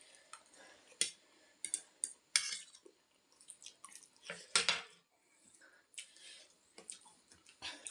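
Eating utensils clinking and scraping against a ramen bowl, with a few sharp clinks, the loudest about four and a half seconds in, and quieter scrapes between.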